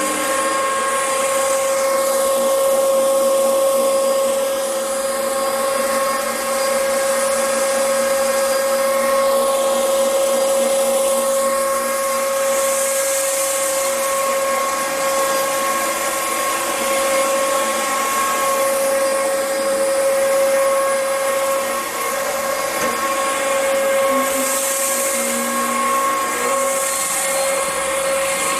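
Upright vacuum cleaner running steadily, its motor giving a constant high whine.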